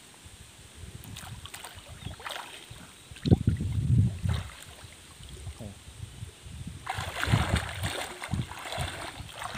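Pond water splashing and sloshing as a gill net is worked by hand, in two bouts: one about three seconds in and a longer one about seven seconds in.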